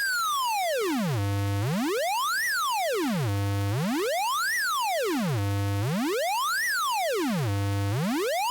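Synthesized buzzy tone rising and falling in pitch: it glides down from a high whistle to a low hum, holds there for a moment, then sweeps back up. This repeats about every two seconds, four times over.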